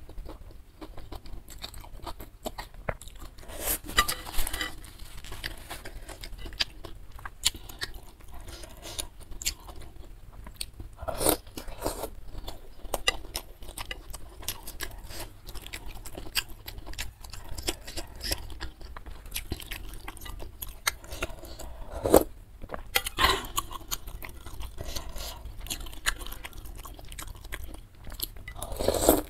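Close-miked chewing of beef-tendon meatballs and glass noodles, a steady run of wet mouth clicks and smacks with crunchy bites. Louder slurps of noodles come at the start and again near the end, with a few more loud bursts in between.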